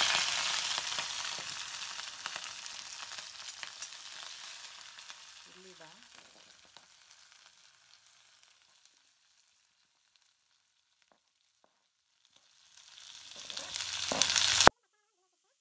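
Green chillies sizzling in hot oil in a cast-iron kadai. The sizzle is loud at first and dies away over about eight seconds. It swells again as the sliced onions go in, then cuts off suddenly.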